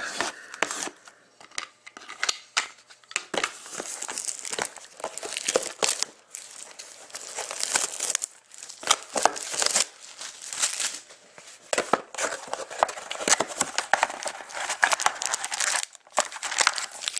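Cellophane shrink wrap crinkling and tearing as it is stripped off a sealed trading-card box, in irregular crackling bursts with short quiet gaps.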